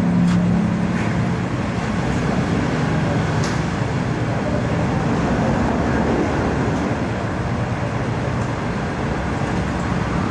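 Motor vehicle running with steady engine and road rumble; a low hum in the first few seconds fades out.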